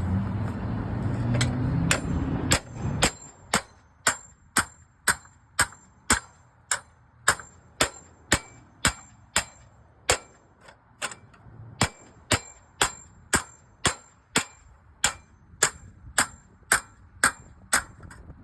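Steady hammering during slate roof repair, about two strikes a second, each hit giving a sharp metallic ring. A low rumble underlies the first few seconds, then fades out.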